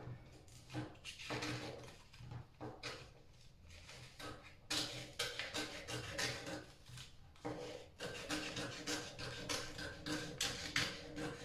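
Scissors snipping through a vinyl wrap sheet and its paper backing: a series of short cuts, coming quicker toward the end.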